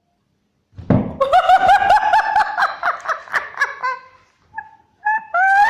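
High-pitched laughter in quick, rapid pulses. It breaks out about a second in after a brief silence, drops away briefly near the end, then starts up again.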